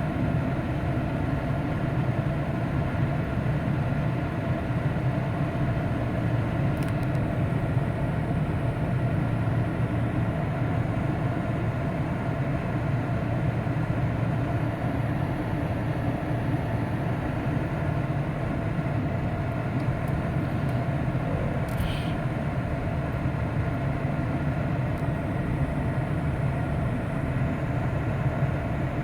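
Steady engine and road drone of a moving vehicle, even throughout, with a couple of faint clicks.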